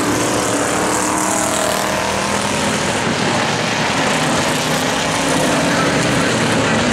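Engines of several vintage winged open-wheel race cars running together around the oval, a steady, loud mix of engine noise.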